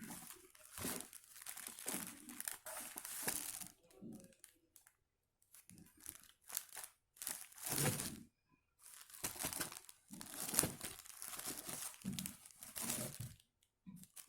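Packaging crinkling and rustling in several stretches, with a few short knocks, as the contents of a newly opened vacuum cleaner box are handled and unwrapped.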